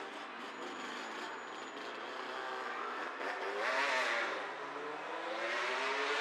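Road traffic: car engines running and speeding up, their pitch rising and falling, with two louder swells of passing vehicles about four and six seconds in.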